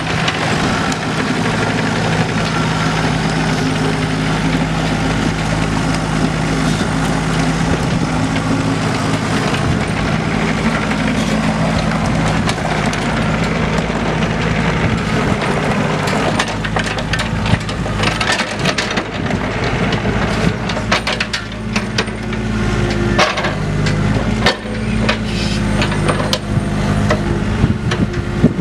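The Yanmar three-cylinder diesel of a Takeuchi TB135 compact excavator runs steadily as the machine tracks across gravel and works its boom. Through the second half, frequent sharp clanks and knocks sound over the engine.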